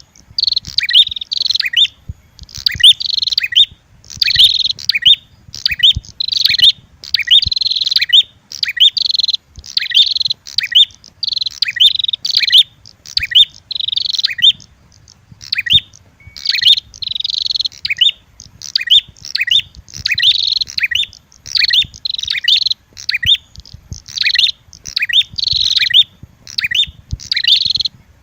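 Prenjak bird calls from a lure recording, a red-headed prenjak mixed with an agitated female prenjak: high, rapid chirping in short bouts about once a second, repeating without a break.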